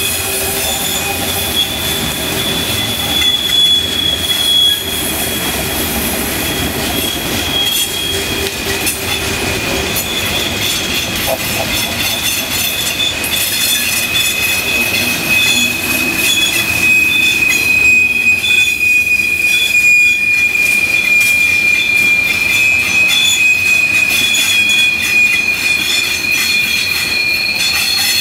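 Coal train's hopper cars rolling past, their wheels giving a steady high-pitched squeal in two tones over the rumble of the cars. The squeal grows stronger in the second half.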